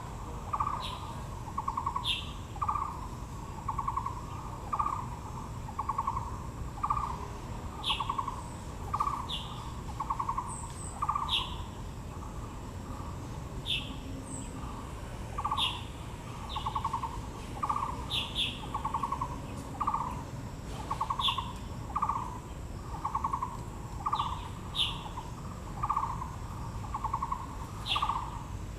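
Birdsong: one bird repeats a short, low, hooting note over and over at a steady pace of about one and a half notes a second. Brief high chirps from another bird break in now and then.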